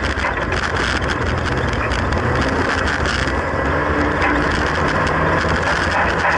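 Classic Mini race car's engine running hard, heard from inside its stripped-out cabin, with the bodyshell and fittings rattling and clattering continuously.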